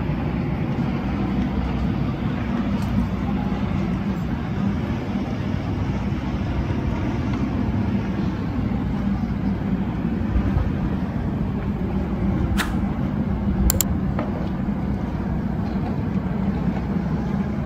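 Steady low hum of a moored lake passenger ship's engine running, with two brief sharp clicks about two-thirds of the way through.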